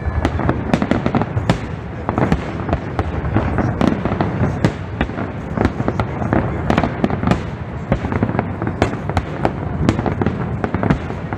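Barrage of aerial firework shells bursting, with bangs in quick, overlapping succession at several a second and no pause.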